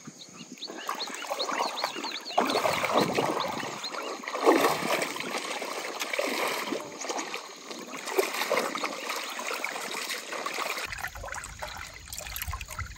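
Water splashing and trickling as someone wades through a shallow river, in uneven bursts. Short high chirps come in quick series a second or two in and again later.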